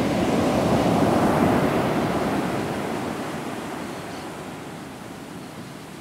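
Ocean surf breaking on a sandy beach: a rushing swell that peaks about a second in, then dies down to a softer wash of foam.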